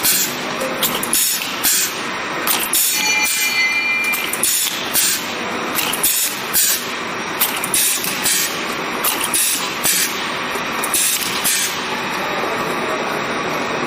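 Automatic four-head linear piston oil-filling machine running: a steady mechanical din with frequent short, sharp hisses and knocks from its moving parts and the bottles.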